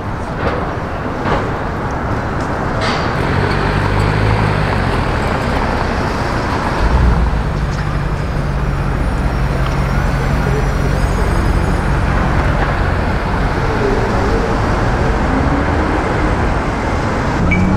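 City street traffic: car engines running and road noise, with a low steady engine hum close by for several seconds in the middle.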